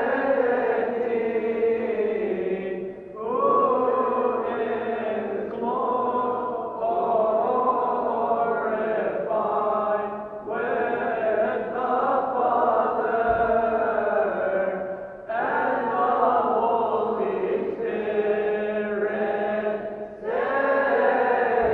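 A group of Coptic deacons, men and boys, chanting a church hymn together without instruments, in long held phrases broken by short breaths every few seconds.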